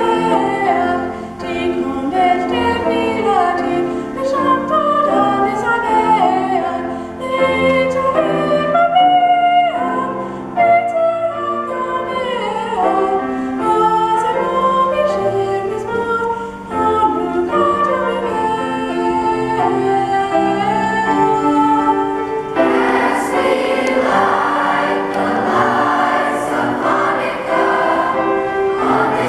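Youth choir singing, led by a girl's solo voice into a microphone; about 22 seconds in, the full chorus comes in and the sound becomes fuller.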